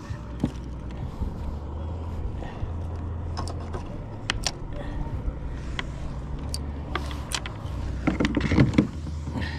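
Small sheepshead and fishing tackle being handled on a kayak: scattered clicks and knocks over a steady low rumble, with a louder flurry of knocking about eight seconds in.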